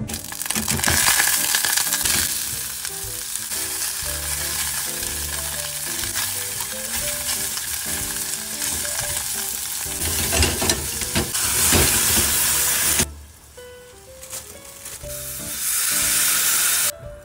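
Sliced onion, carrot and celery sizzling in a hot stainless steel pan as they are stirred with a spatula, sweated as the base of a fish stock (fumet de poisson). The sizzle drops away for a few seconds near the end, then flares up again briefly.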